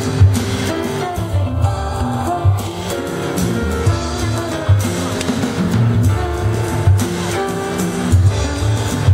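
Live jazz: a woman singing into a microphone over a double bass line.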